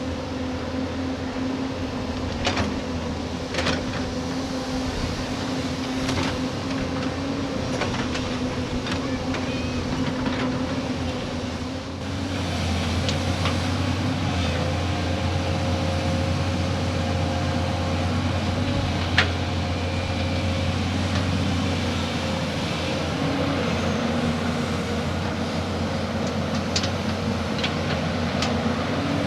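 Heavy diesel excavator engine running under load, with occasional sharp metallic clanks. The engine note grows louder and heavier about twelve seconds in.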